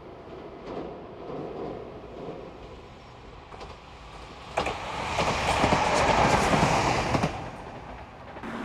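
Railway inspection train approaching and passing close by, its wheels clacking rapidly over rail joints. The sound builds up, is loudest about five seconds in and drops away after about seven seconds.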